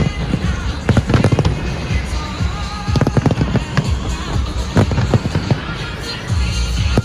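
Fireworks display: many bursting shells going off in quick succession, several sharp bangs and crackles a second, over a music soundtrack.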